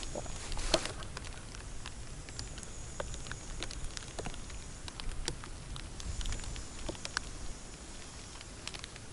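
Light rain pattering: scattered, irregular sharp ticks of drops all through, over a low rumble.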